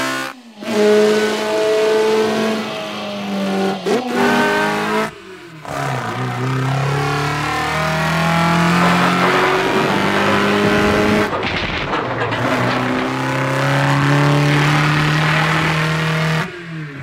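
Racing-car engines at speed, the engine note rising and falling, with several abrupt cuts where one engine sound gives way to another.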